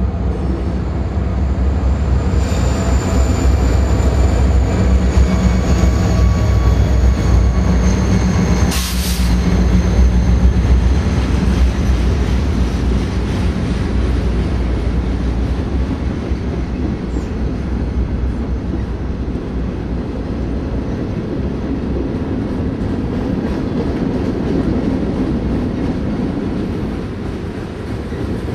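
Diesel locomotives of a freight train passing close by, engines running with a heavy low rumble, then the freight cars rolling past with steady rail noise. A high thin wheel squeal is heard in the first ten seconds, and a brief harsh burst of noise comes about nine seconds in.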